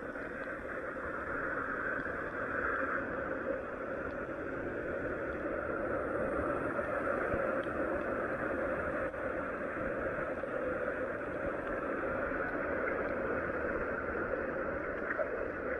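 Steady noise of heavy rain and running floodwater, with no single event standing out.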